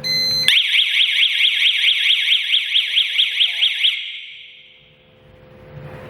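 Siren of a DY-G10A GSM home alarm system going off: a short steady high beep, then a fast warbling wail that sweeps up and down about five times a second for some three seconds before fading away.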